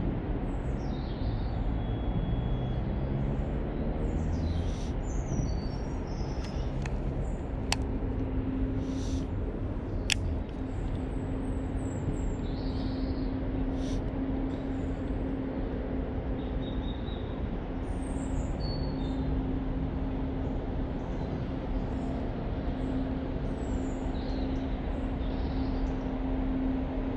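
Small birds chirping now and then over a low mechanical drone and a steady background rumble. The drone slides in pitch for the first few seconds, then holds one steady tone. Two sharp clicks come about eight and ten seconds in.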